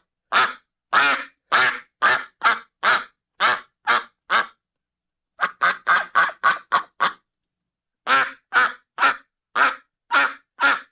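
A duck quacking in runs of short, evenly spaced quacks, about two a second, with a quicker run of about four a second in the middle and brief pauses between runs.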